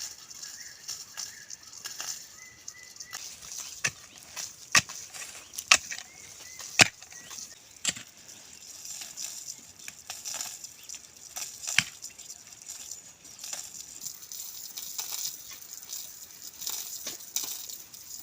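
A series of sharp, irregular knocks, about six in all and loudest in the middle, over a steady high hiss, with a few faint chirps near the start.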